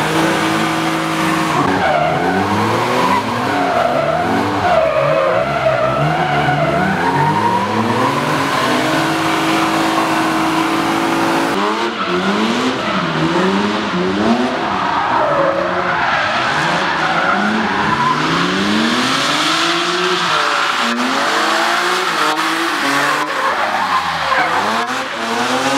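BMW E36 drift cars sliding through corners: engines revving up and down again and again under wheelspin, with tyre squeal and skidding hiss. More than one engine is heard at once, each rising and falling in pitch.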